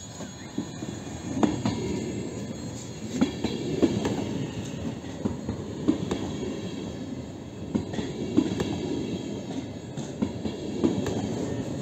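Double-deck electric multiple-unit train running alongside the platform at close range: a steady rumble of wheels on rail, growing louder over the first couple of seconds, with irregular sharp clacks as the wheels cross rail joints.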